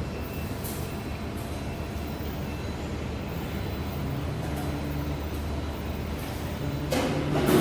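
Steady low machinery hum from workshop equipment, with a louder rush of noise about seven seconds in.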